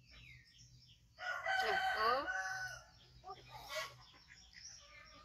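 A rooster crows once, starting a little over a second in and lasting about a second and a half. Small birds chirp faintly around it.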